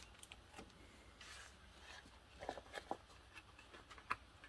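Faint handling of paper and cardstock: a soft rustle about a second in, then a few light taps and clicks as a card panel is laid down and positioned.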